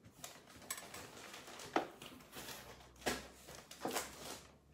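Rummaging in a cardboard meal-kit box: packaging rustling, with about half a dozen short knocks and taps as items are moved about.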